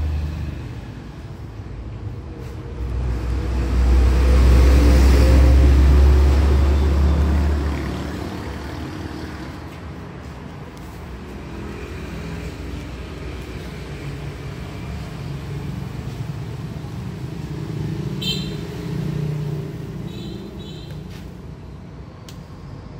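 Low rumble of road traffic, swelling a few seconds in and fading by about eight seconds, then lower and steady; a few short high-pitched beeps near the end.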